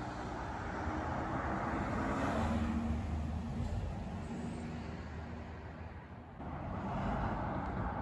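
Road traffic passing: a vehicle's noise swells and fades, then another swells near the end, over a low engine hum.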